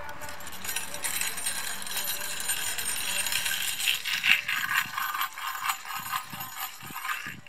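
A rattle or set of jingles shaken steadily in a dense, continuous clinking jingle, louder in the middle, cutting off suddenly near the end.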